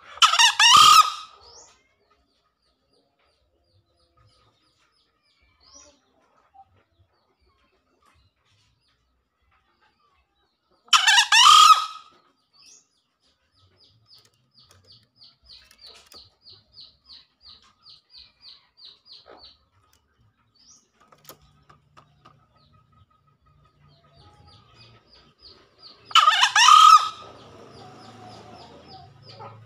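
Male green junglefowl crowing three times, about every 13 seconds, each crow short, about a second long. Between the crows a faint series of high chirps repeats about four times a second.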